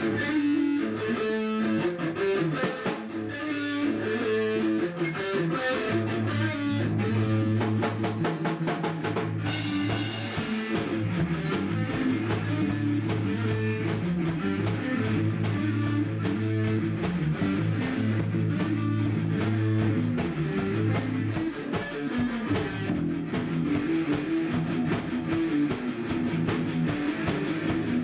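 Rock band playing live in a rehearsal room: an electric guitar riff over a drum kit, with the cymbals joining about ten seconds in.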